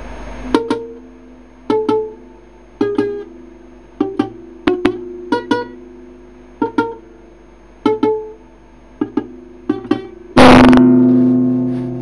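Music: single guitar notes plucked at a slow, uneven pace, each ringing on. Near the end a loud noisy hit lands with a chord that rings and slowly fades.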